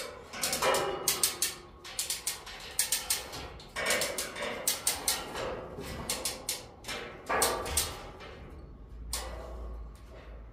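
Sharp metallic clicks and clanks in quick clusters of two to four strikes, coming irregularly every half second to second and a half, each with a short ringing tail, from hands-on work rigging a steel pallet-rack upright with a strap.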